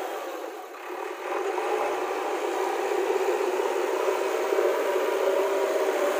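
JCB 3DX backhoe loader's diesel engine running as the machine moves, heard as a thin, steady whir with no bass; its pitch rises slightly from about three seconds in.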